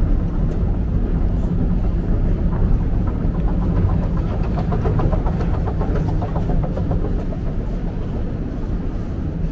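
Metro escalator running: a steady low rumble of the machinery, with a rattling clatter of the steps for a few seconds in the middle that eases off slightly afterwards.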